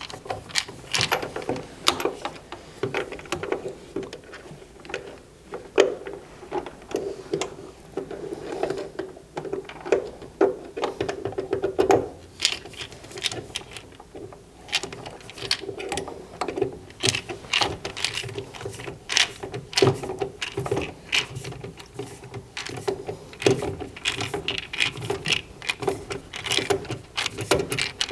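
Irregular clicks, knocks and clatter of hand tools and metal parts as a gas furnace's draft inducer assembly is refitted, over a steady low hum.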